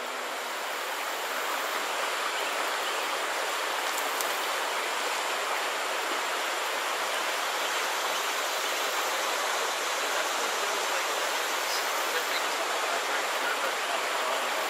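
Steady rush of bayou water flowing over a shallow rocky riffle.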